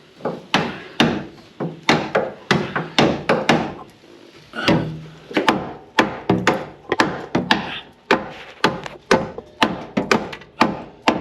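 Hammer blows on a rusted, seized bumper bolt under a Chevy Silverado, trying to drive it out, struck steadily about twice a second with one short pause near the middle.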